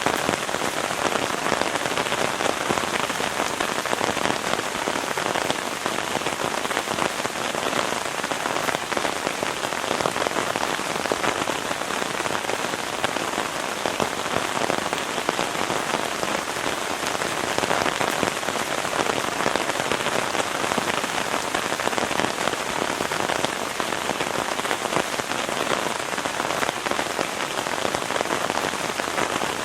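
Heavy rain falling steadily: a dense, even patter of countless drops.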